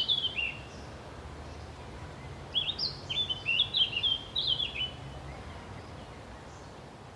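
A songbird singing: quick runs of chirping notes that step downward, one brief phrase at the start and a longer run from about two and a half to five seconds in, over a steady faint background rumble.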